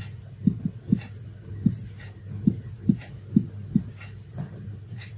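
Marker writing on a whiteboard: a run of short, dull knocks at an uneven pace as the strokes land on the board, over a steady low hum.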